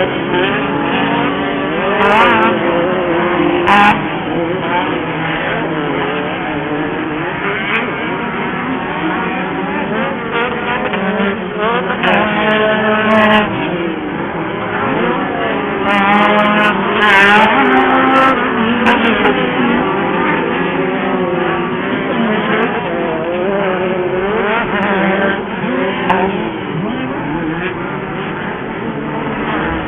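Off-road race buggies' engines running and revving, several at once, their pitches rising and falling as they accelerate and back off, with a few sharp clicks.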